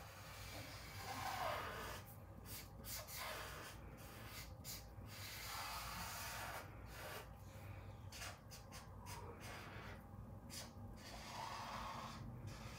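Marker tip rubbing on paper in repeated short strokes, faint, with brief pauses between strokes.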